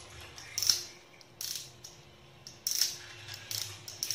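Short slurping sips of tea from a glass, a series of quick sips roughly a second apart.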